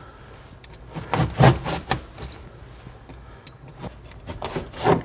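Drywall being cut by hand along a marked outline: short cutting strokes, a cluster about a second in and another near the end.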